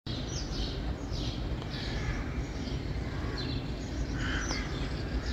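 Birds chirping over a steady low rumble: a short, high, falling call repeats about every three quarters of a second.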